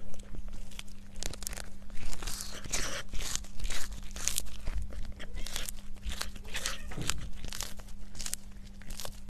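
A cat biting and chewing a piece of crunchy food held in its paws: a run of irregular crisp crunches.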